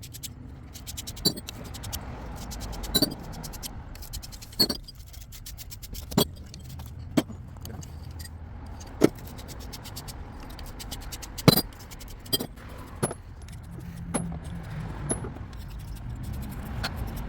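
Copper pipe, fittings and tools clinking as they are handled and set down: about a dozen sharp metallic clinks at irregular intervals, one to two seconds apart, over a steady low rumble.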